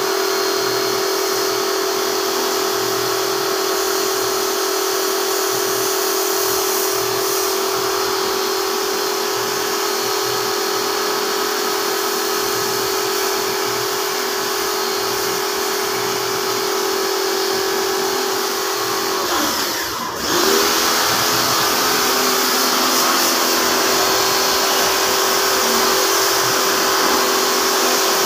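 Pressure washer pump running with a steady whine while its spray hisses against an air-conditioner outdoor unit's condenser coil, washing the fins. About two-thirds of the way through, the whine drops in pitch for a moment and comes back up.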